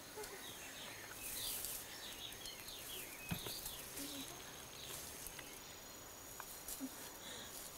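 Jungle ambience: many short bird chirps over a steady high insect buzz, with one sharp click a little after three seconds in.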